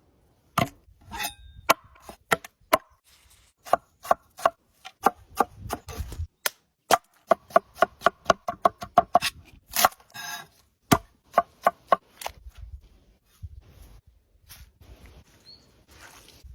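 A knife chopping on a cutting board: a series of sharp, irregular chops that come fastest and most evenly, about four or five a second, partway through, then thin out toward the end.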